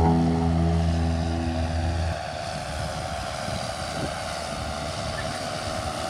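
Background music ends about two seconds in. After that a John Deere tractor runs steadily while pulling a disc harrow through the field, heard as a low, even rumble.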